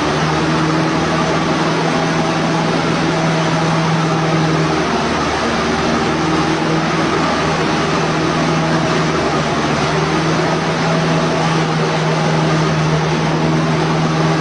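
A motor running steadily and loudly, a constant low hum over a dense rushing hiss.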